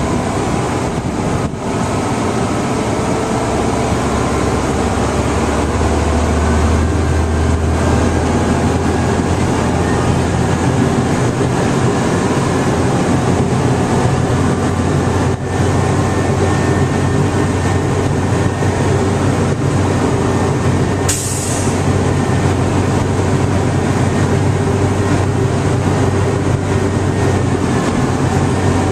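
Fire engine's diesel engine and drivetrain heard from inside the cab while driving: a steady low drone, with a faint whine slowly rising in pitch. A short hiss comes about 21 seconds in.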